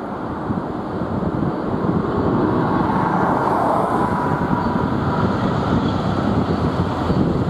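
Wind buffeting the microphone over the low rumble of CSX's F40PH diesel passenger locomotives approaching, growing louder from about a second in.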